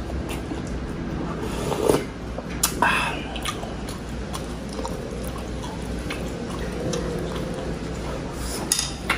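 Close-up eating sounds: a person chewing and sipping sinigang broth from a wooden spoon, with scattered mouth clicks and a few louder smacks about two and three seconds in. A steady low hum runs underneath.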